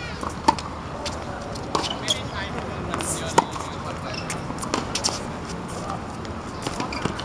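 Tennis ball struck by racket strings and bouncing on a hard court in a serve and rally, a sharp pock every second or so, the loudest about three and a half seconds in.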